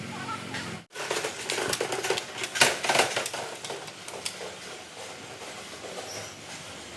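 Irregular scraping and clicking from hand body-filler work on a van's tailgate, busiest between about one and four seconds in, then settling to a quieter scratchy hiss.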